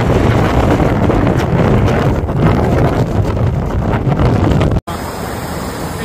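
Strong wind buffeting the microphone over rough storm surf, waves breaking and churning on the shore. About five seconds in it cuts off abruptly and gives way to a steadier, quieter rush of floodwater.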